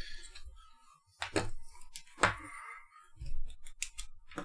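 Handling noises on a desk: a handful of sharp clicks and knocks as a small circuit board is set down and a USB cable is plugged into a power bank, with a low thud about three seconds in.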